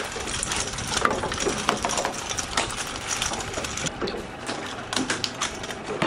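A freshly caught tuna thrashing against the boat's fish hold in its death throes, giving a rapid, irregular run of taps and rattles.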